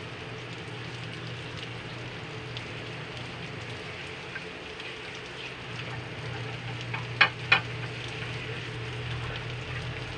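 Carrots, sliced hotdog and ground pork frying in a wok, a steady sizzle. Two sharp knocks about seven seconds in.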